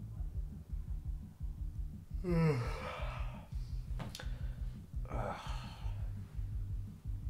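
A young man's sigh that starts as a groan falling in pitch about two seconds in, then a second breathy exhale a few seconds later. Soft background music with a low, even pulse plays underneath.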